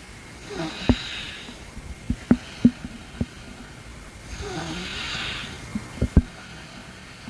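Stomach gurgling: a string of sharp pops with two longer hissing, warbling gurgles, one near the start and a longer one about four and a half seconds in.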